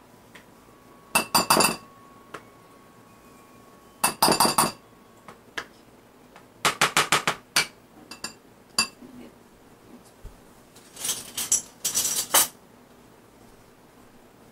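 A spoon clinking against a bowl in four bursts of rapid strokes, as tuna salad with mustard is stirred.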